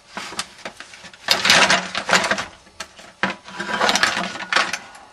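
Loose engine parts and wiring being shifted about by hand in a plastic crate, rattling and clicking in two main spells of about a second each, with smaller knocks between.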